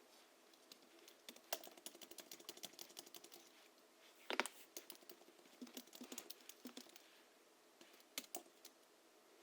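Typing on a Hansung GHL-5X keyboard tuned with lubricated springs, 50 g rubber domes and sound-absorbing foam in the case. The keys are struck in short irregular runs, with one heavier keystroke about four seconds in and a couple of last taps near the end.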